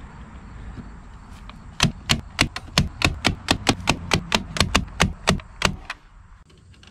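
Hand snips cutting through chicken wire: a fast, even run of some twenty sharp snips, about five a second, starting about two seconds in.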